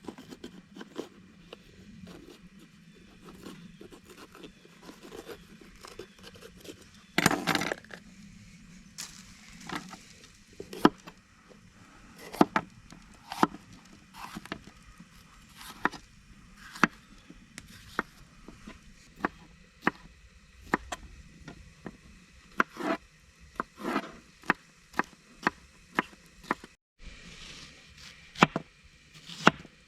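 Knife chopping a bell pepper and onion on a cutting board: a long series of sharp chops, roughly one a second, with one louder, longer noise about seven seconds in.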